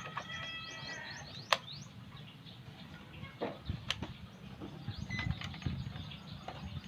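A rooster crowing, its call trailing off about a second in, with small birds chirping quickly over it. A few sharp clicks and light knocks follow.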